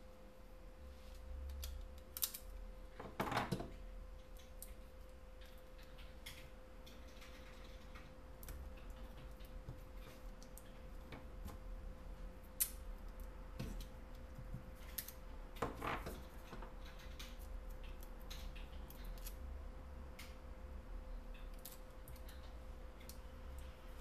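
Amber polyimide (Kapton) tape pulled from its roll, cut with a utility knife and pressed onto a phone circuit board: scattered light clicks and taps, with two short rasps, one a few seconds in and one past the middle. A faint steady hum runs underneath.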